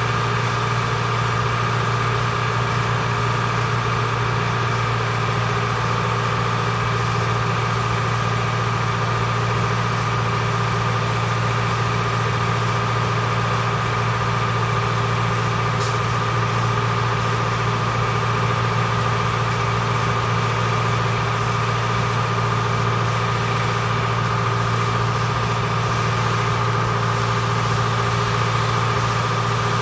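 Fairmont Tamper track machine's diesel engine idling steadily: a constant low hum with a steady higher tone over it. A single faint click about halfway through.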